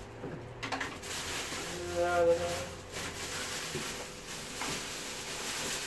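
Rummaging in a wall cupboard: plastic bags rustling and stored items shifting. A brief pitched squeak or hum comes about two seconds in.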